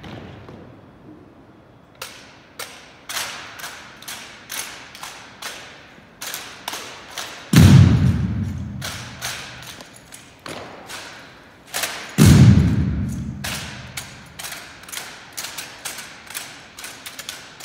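Drill team handling rifles in unison: a string of sharp clacks and slaps as the rifles are struck and moved, with two heavy thuds about halfway through and again some four seconds later, echoing in a gymnasium.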